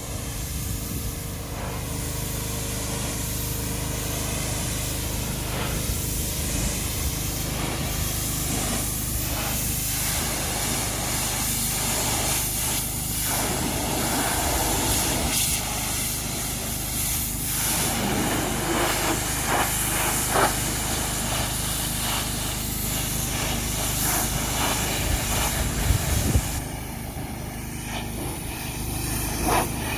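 Pressure washer spraying: a steady loud hiss of the water jet over the even hum of the washer's motor, with a few knocks. The spray's hiss thins out about three quarters of the way through.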